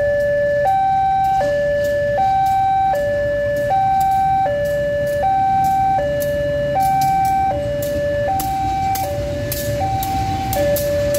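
Railway level-crossing warning alarm sounding a steady two-tone hi-lo signal, each tone held about three-quarters of a second. Under it, the low rumble of a KAI CC203 diesel-electric locomotive passing over the crossing.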